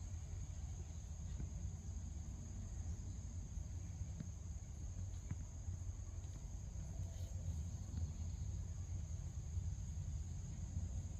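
Crickets chirring in a steady, unbroken high trill, over a constant low rumble.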